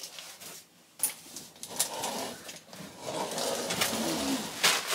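Mesh storage drawers being pulled and rummaged through: sharp clicks and rattles of the drawers and the items inside. A short cooing voice comes in about four seconds in.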